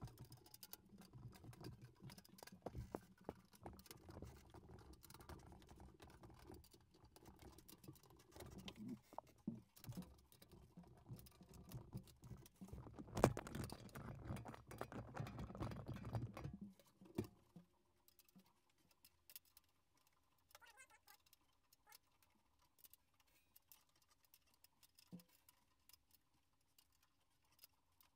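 Faint handling noise from a snare drum being retuned: scrapes, taps and small clicks as its heads are detuned and tightened and the drum is moved. The noise is busier for the first sixteen seconds or so, with one sharper knock a little past the middle, then thins to sparse light ticks.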